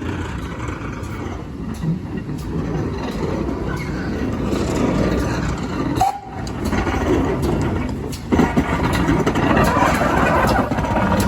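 Pannier tank steam locomotive moving slowly on the station loop, a steady rumble of the engine and its wheels. A sharp knock about eight seconds in.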